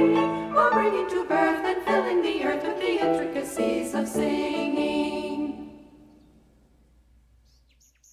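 Voices singing in a choir with instruments, finishing the song's last phrase and fading out about five and a half seconds in. A few short, high bird chirps come in near the end.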